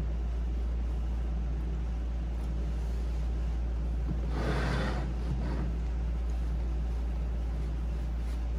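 A steady low hum runs throughout, with a brief rustle of canvas fabric being handled and smoothed over a seat frame about halfway through.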